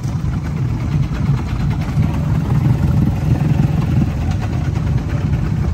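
ATV engine running under throttle with a wavering level, the quad stuck in a deep mud hole.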